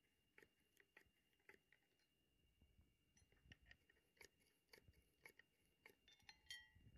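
Faint, irregular clicks and light metal clinks from handling Ford Model T transmission parts, one or two a second, a couple ringing briefly near the end, over a faint steady high whine.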